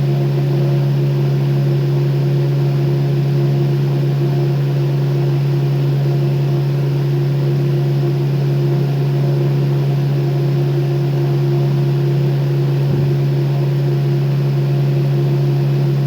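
Electric fan running steadily and loudly: a low motor hum under an even rush of air.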